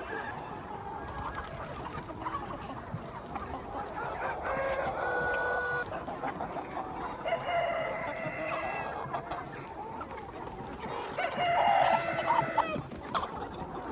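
Chickens clucking, with a rooster crowing three times in long calls, loudest near the end.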